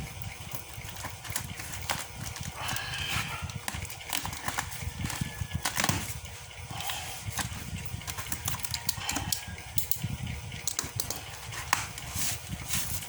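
Irregular knocks and clicks from a device and its packaging being handled, over a low rumble.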